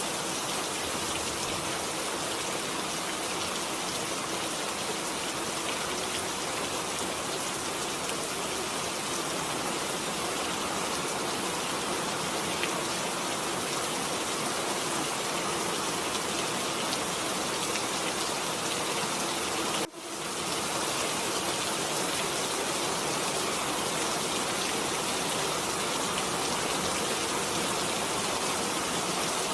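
Steady recorded rain sound, an even hiss of falling rain. About two-thirds of the way through it briefly drops out and fades back in over about a second.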